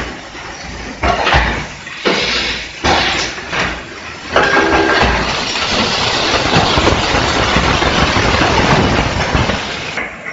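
Automatic PET bottle blow-moulding machine running: separate mechanical knocks and clatters for the first few seconds, then a steady, loud rushing noise from about four seconds in that eases near the end.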